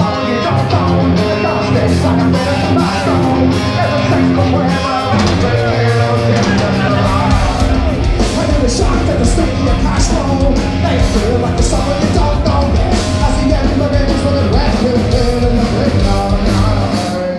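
Live rock band playing loudly, with a singer over distorted guitars, bass and steady drums, picked up from within the crowd in a reverberant hall.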